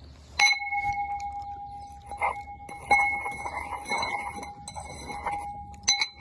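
An object struck with a sharp clink about half a second in, ringing on with a clear, steady bell-like tone for about five seconds. A few more light clinks come on top of it, the last one near the end.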